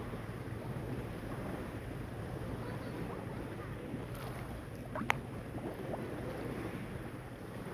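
Sea water washing steadily, with wind rumbling on the microphone. A single short, sharp click comes about five seconds in.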